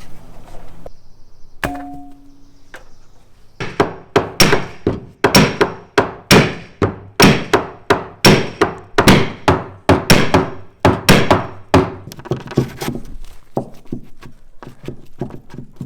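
A rapid series of hard hammer blows, about two to three a second for some eight seconds, then lighter taps near the end.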